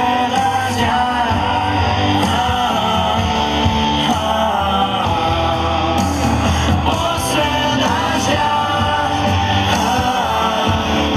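Live band music with a singer, played loud and steady.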